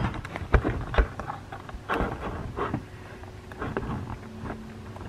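Scattered taps and knocks at a desk with a laptop: several sharp taps in the first second, then sparser, softer ones, over a faint steady hum.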